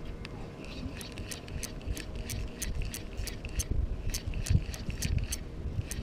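Spinning reel being cranked fast to retrieve a casting jig, ticking about three times a second from about a second in, over a low rumble.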